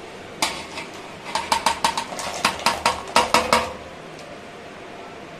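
Steel plate clinking and scraping against the rim of a steel pot as rice-dough kozhukattai pieces are tipped into boiling water: one clink about half a second in, then a quick run of a dozen or so sharp metallic clinks over the next two and a half seconds.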